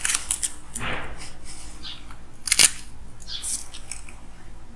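Hands handling a clay donut on a bamboo cutting board: scattered light clicks and taps, with one sharp knock about two and a half seconds in.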